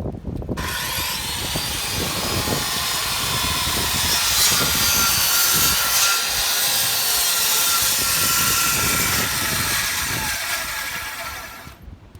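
Power tool working rough-cut lumber, a steady high-pitched hiss with a faint whine. It starts about half a second in and cuts off sharply near the end.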